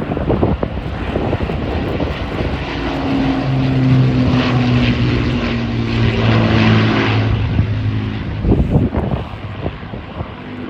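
A propeller-driven aircraft flying past, its engines making a steady drone that builds, sinks slightly in pitch and fades away, with wind noise on the microphone.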